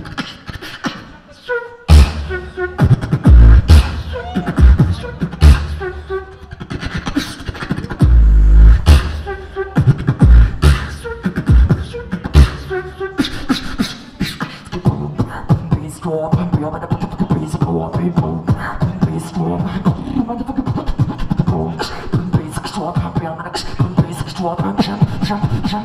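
Solo beatboxing into a handheld microphone: sharp kick, snare and hi-hat sounds made with the mouth, with heavy deep bass hits about two and eight seconds in. From about fourteen seconds in, a sustained pitched vocal bass line runs under the drum sounds.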